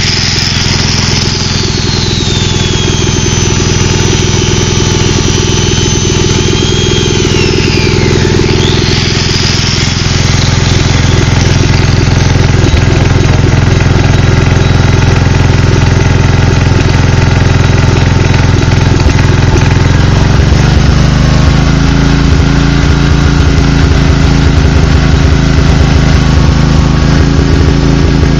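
Makita G 3500R generator's four-stroke engine running unevenly, which the owner believes needs a carburettor adjustment. A high whine slides down in pitch and back up over the first nine seconds, and the running grows louder about ten seconds in.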